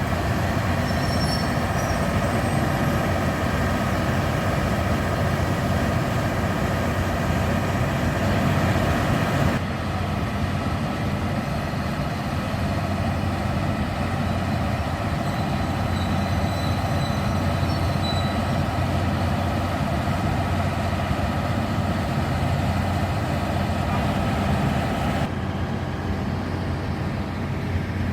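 KiHa 183 diesel railcar running, a steady engine and rail noise with a deep hum. The higher hiss drops off suddenly about a third of the way in and again near the end.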